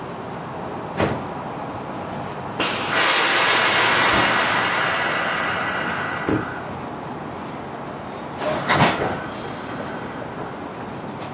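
Compressed air hissing from a standing commuter rail coach's air brakes: a loud hiss starts suddenly about two and a half seconds in and fades away over about four seconds. A single clunk comes before it, and a couple of clunks follow near the end.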